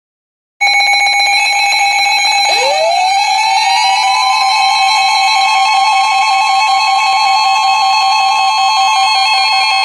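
Weather radio emergency alert tone: a loud, steady electronic alarm tone. About two and a half seconds in, a second tone sweeps up in pitch and then holds steady. It sounds over a lower tone that flutters rapidly, signalling a new warning about to be broadcast.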